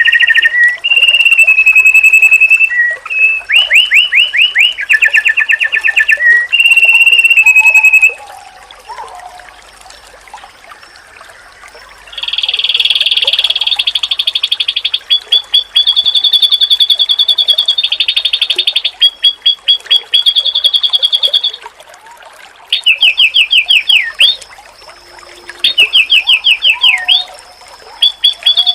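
White-eye (pleci) song, loud and high-pitched: bursts of held whistles and fast repeated trilled notes, broken by a pause of a few seconds about a third of the way in and a shorter one later on.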